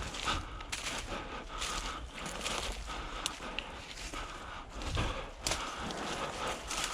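Footsteps on rough ground with rustling, coming as irregular crunches.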